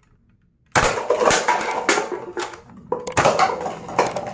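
Hard plastic toy guns clattering and knocking as they are handled, with several sharp knocks. The clatter starts under a second in, after a brief hush.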